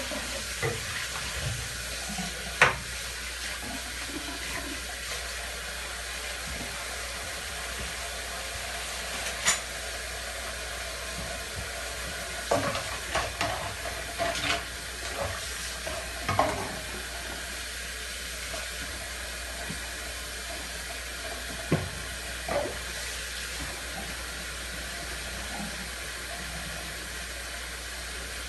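Dishes being washed by hand at a sink: water running steadily, with scattered clinks and knocks of dishes against each other and the sink, a sharp one about two and a half seconds in and a cluster of them between about twelve and seventeen seconds in.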